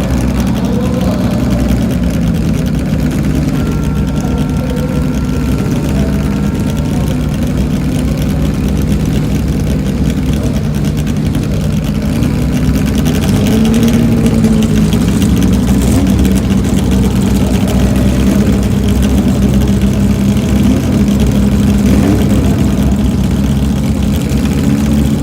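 Racing car engines idling, a steady low running with small rises and falls in pitch and a slight increase in loudness about halfway through.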